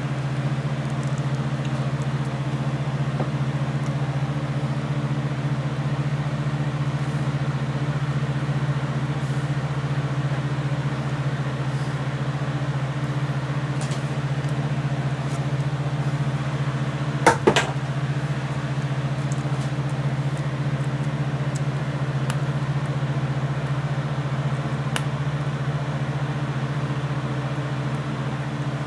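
Steady low machine hum of running workshop equipment, with a sharp double click about halfway through.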